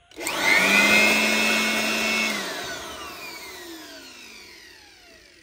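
Total 400 W electric aspirator blower switched on: its motor and fan spin up at once and run steadily for about two seconds with a whine. It is then switched off, and the whine falls in pitch and fades as the fan coasts down.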